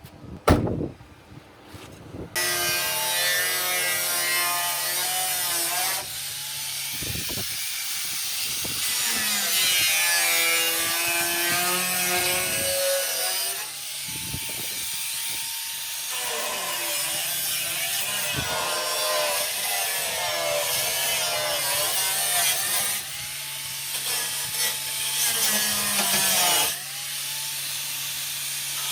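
Power tool working on rusty vehicle body sheet metal, starting after a few clicks about two seconds in. Its motor's pitch wavers as it bears into the metal, with short easings now and then.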